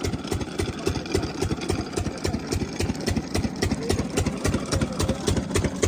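12 HP Lister-type single-cylinder diesel engine of an irrigation water pump set running steadily, with an even beat of several firing strokes a second.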